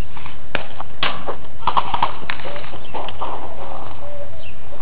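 A run of irregular sharp clicks and knocks, a few a second, followed by a faint wavering tone from about halfway through.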